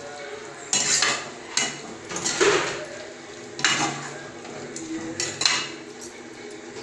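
Perforated metal spatula scraping and clinking against a metal kadai as chicken is stirred, a series of short scrapes about once a second.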